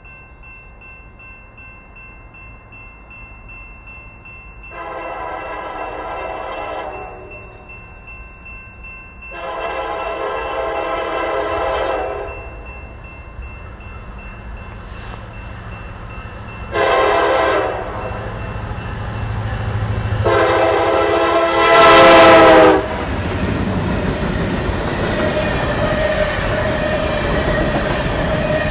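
The horn of Norfolk Southern SD70ACC locomotive 1810 sounds the grade-crossing signal, long, long, short, long, each blast a chord of several notes, the last one the loudest. Then the coal train passes close by with a loud, steady rumble of locomotives and wheels on the rails.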